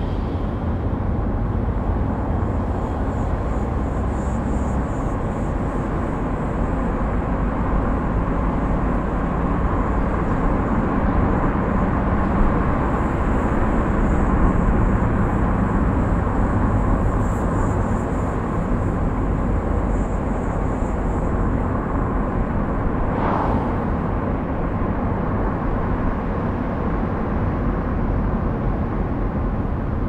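A car driving along a road: steady tyre and engine rumble, with one short swish about three-quarters of the way through.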